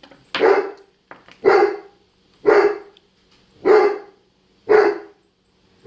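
A dog barking five times, evenly spaced about once a second.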